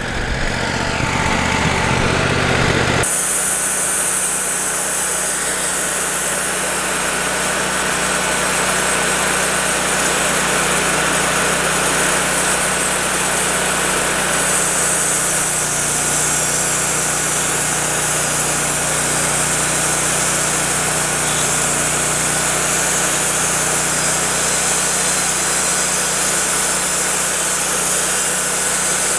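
Wood-Mizer LT40 hydraulic sawmill's engine running steadily with a steady whine while its hydraulics turn the log over on the mill; the sound changes about three seconds in, then holds even.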